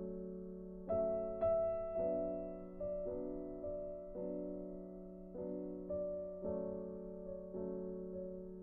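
Background music: a soft, slow piano melody with notes struck about once a second and left to ring over a steady low chord.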